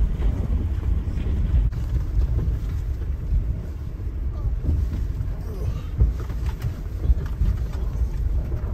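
In-cabin road noise of a lifted Subaru Forester crawling along a rough dirt forest road: a steady low rumble of tyres on gravel and working suspension, with a few sharp knocks and jolts from ruts and rocks.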